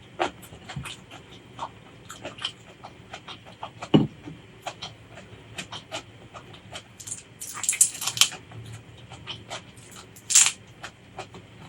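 Close-miked eating sounds: chewing and wet mouth clicks, with a couple of louder crisp, crunchy bites about two-thirds of the way through and again near the end.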